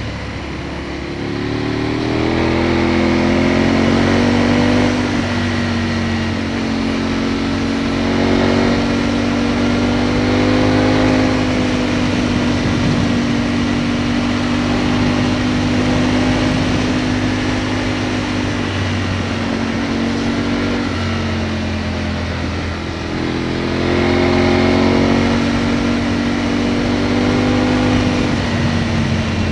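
Aprilia Tuono motorcycle engine under way, heard from a camera on the bike over a rush of wind noise. The revs climb over the first few seconds and hold steady, drop back about two-thirds of the way through, climb again, then fall away near the end.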